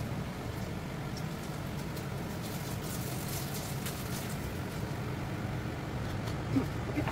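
Steady low rumble of a lit gas stove burner under a wok, with a few faint clicks of a spatula and mesh strainer against the wok.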